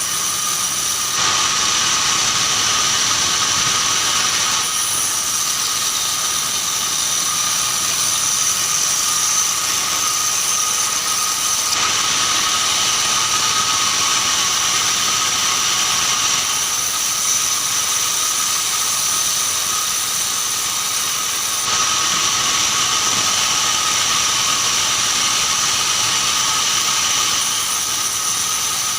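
Band sawmill running with a steady high whine as its blade cuts keranji hardwood. The cutting noise grows and fades in long stretches of several seconds.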